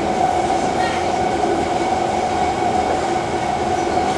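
Kawasaki C151 MRT train running at speed, heard from inside the car: a steady rumble of wheels on rail with a whine held at one pitch from its Mitsubishi GTO chopper propulsion.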